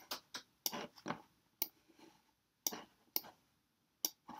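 Computer mouse clicking: about ten short, sharp clicks at irregular intervals.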